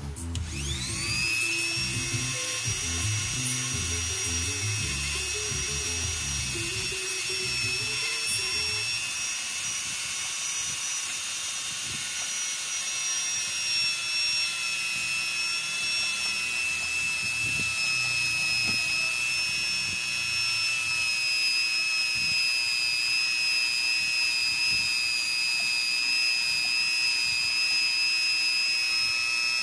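High-speed rotary tool with a small abrasive stone spins up quickly at the start, then runs steadily with a high whine while grinding the worn contact faces of Nissan TD27 rocker arms to restore proper valve clearance.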